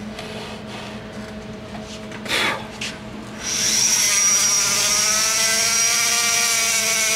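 Die grinder with a sanding roll starting up about halfway through and running with a steady high whine as it smooths the aluminum exhaust port of an LS cylinder head.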